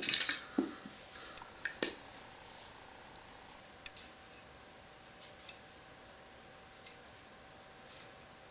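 AR-15 upper and its metal parts being handled and set down during disassembly: a sharp knock at the start, then scattered light metallic clicks and clinks about once a second.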